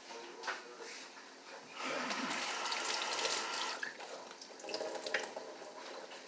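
A liquid sound, running or splashing, lasting about two seconds and starting about two seconds in, with a few short clicks before and after it.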